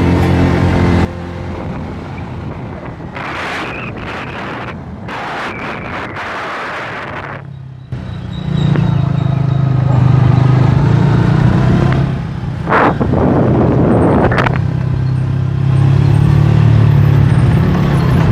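Background music cuts off about a second in, leaving the sound of riding a motorcycle: wind and road noise, then from about eight seconds in the motorcycle's engine running loud and steady.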